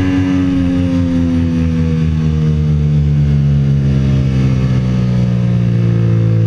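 Sport motorcycle engine at speed, its note falling smoothly and steadily as the bike slows, with no gear change.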